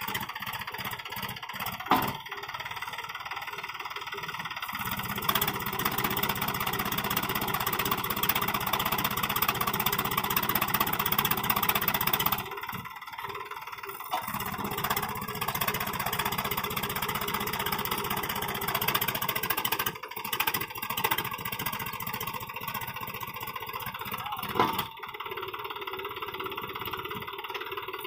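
Mahindra B275 DI tractor's three-cylinder diesel engine revving hard under load as it strains to pull a sand-laden trolley with its rear wheels dug into loose sand. It eases off about twelve seconds in and then builds again, with two sharp knocks, one near the start and one near the end.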